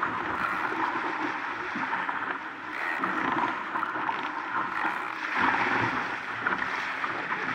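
Water rushing and splashing past the hull of an RS Aero sailing dinghy moving fast in strong wind, swelling louder twice as it meets waves.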